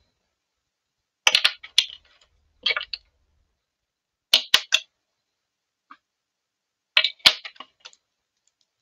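Pens and small tools clicking and clattering against a glass desktop as they are picked up and set down, in four short bursts of sharp knocks.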